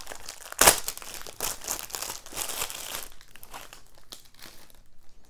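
Plastic shrink wrap being pulled off a DVD case and crumpled in the hands: a crackly crinkling with one sharp, loud crackle under a second in. It dies down after about three seconds to a few light clicks.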